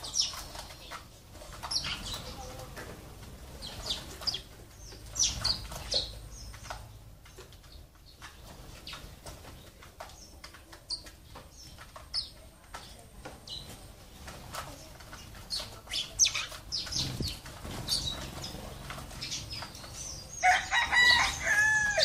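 Sparrows chirping in short, sharp calls throughout, with wings fluttering as birds come and go. Near the end a louder, longer call with several pitches sounds for about a second and a half.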